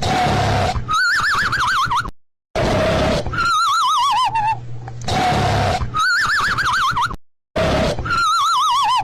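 Looped cartoon snoring sound effect: a rasping snore followed by a warbling, wavering whistle, repeating about every two and a half seconds. The sound cuts to dead silence twice for a moment.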